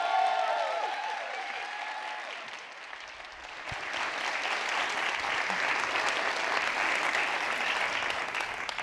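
Theatre audience applauding. The clapping eases off around three seconds in, swells again about half a second later and stops just before the end.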